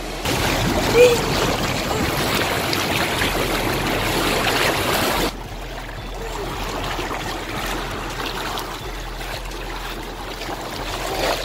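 Rushing, splashing water of a hot tub's bubbling jets, heard close at the water's surface. About five seconds in the sound drops suddenly to a quieter, steady bubbling.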